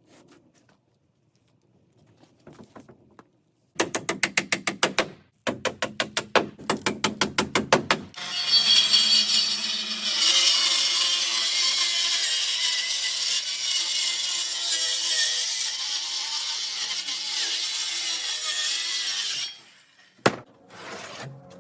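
A saw cutting a wooden siding board: a quick run of rhythmic strokes for about four seconds, then about eleven seconds of steady cutting that stops suddenly, followed by a single sharp knock.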